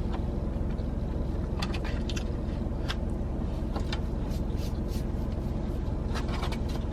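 Steady low hum of an idling car heard from inside the cabin, with scattered faint clicks and rustles.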